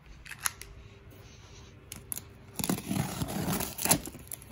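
A few light clicks, then about a second and a half of scratchy tearing as a utility knife slices along the packing tape sealing a cardboard box.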